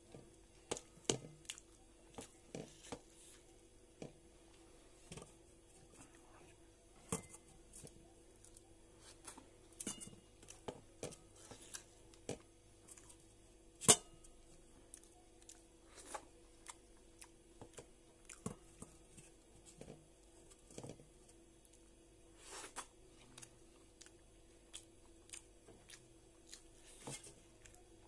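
Close-miked eating sounds as idli with coconut chutney is eaten by hand: soft chewing and mouth smacks, heard as scattered short clicks, with one sharper click about halfway through.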